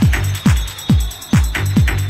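Electronic dance music: a steady kick drum a little over twice a second, each beat a deep thud dropping in pitch, with ticking hi-hats between.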